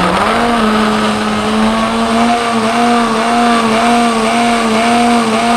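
Electric jug blender running at speed, puréeing chopped carrot, cucumber, ginger and apple with a little water into juice. Its motor note rises at the very start, then holds steady with a slight waver.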